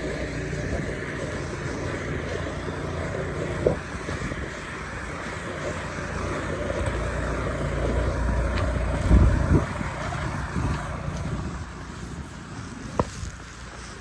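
Strong snowstorm wind buffeting the microphone: a steady low rumble that swells around the middle and eases near the end, with a heavy low thump about nine seconds in and a couple of sharp knocks.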